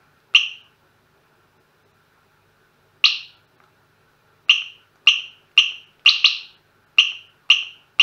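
A cheap bicycle alarm's buzzer giving short electronic chirps as its A, B, C keys are pressed to change the code. There is one chirp, another about three seconds later, then a quick run of chirps about half a second apart from about four and a half seconds in, including one close double.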